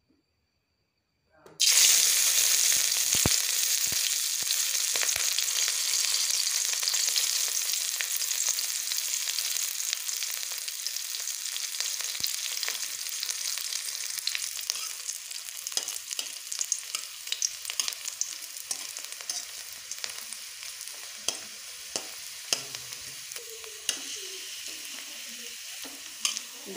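Sliced onion and chili dropped into hot oil in a kadai, sizzling loudly at once about a second and a half in, then the sizzle slowly dying down as they fry. In the later part a spatula scrapes and taps against the pan as they are stirred.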